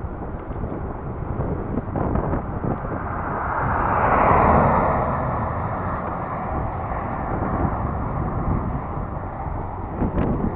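A car overtaking the bicycle: its tyre and engine noise swells to a peak about four seconds in, then fades as it pulls away. Wind rumbles on the microphone of the moving bike throughout.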